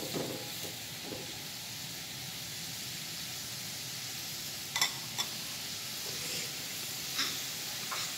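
Strips of chayote and chili sizzling steadily in hot oil in a wok as they are stir-fried, with two sharp clicks about five seconds in.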